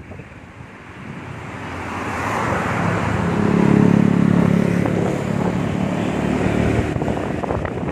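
Motor scooter engine running close by, its steady hum swelling to loudest about four seconds in, over road traffic noise.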